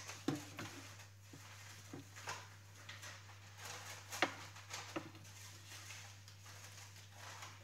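Spatula scraping down the sides of a Thermomix's stainless steel mixing bowl: scattered light scrapes and knocks, the loudest about four seconds in.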